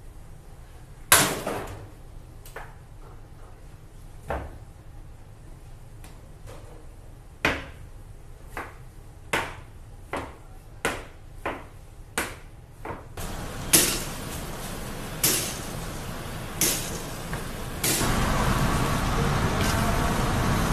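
A knife chopping through a bone-in rib cut onto a plastic cutting board: a dozen or so sharp, irregular knocks. About 18 s in, a steady hiss of steaks sizzling on a grill takes over.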